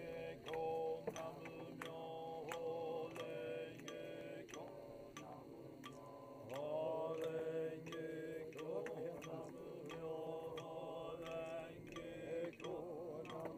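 Buddhist chanting by a group of voices, long held notes sliding between pitches, with sharp ticks about twice a second keeping the beat.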